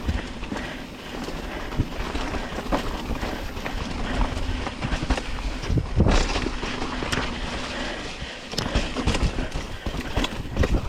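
Mountain bike riding down a rough dirt trail: tyres and frame rattling over rocks with irregular clicks and knocks, over a steady rumble of wind on the microphone. The bumping is heaviest about six seconds in.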